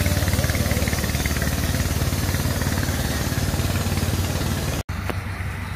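Rice combine harvester engine running steadily under load as it cuts rice, with a dense mechanical rattle over a low even hum. About five seconds in the sound drops out for an instant, then a quieter engine hum carries on.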